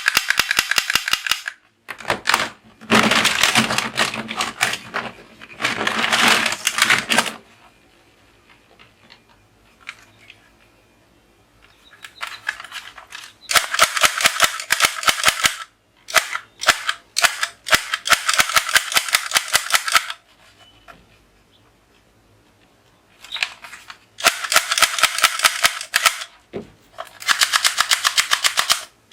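Toy guns firing in repeated bursts of rapid, evenly spaced clicking shots. Each burst lasts one to four seconds, with short pauses between them and a longer lull before the middle of the stretch.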